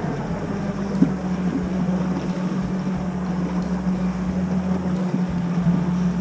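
A fishing boat's outboard motor running steadily at low speed, one even engine tone, with wind buffeting the microphone.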